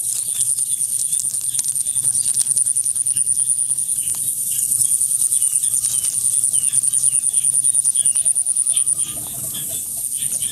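A steady, high-pitched chorus of insects trilling in fast pulses, easing off briefly about nine seconds in, with short chirps and faint clicks over it.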